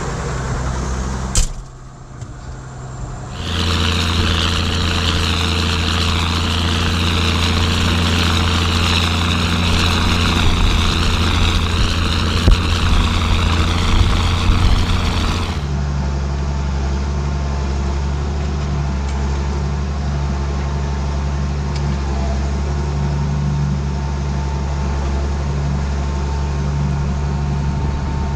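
Ford TW tractor's diesel engine running steadily under load while pulling a plough. After a sharp click and a brief dip about a second and a half in, the engine comes back louder with a hiss over it, then changes abruptly to a smoother, steady run about halfway through.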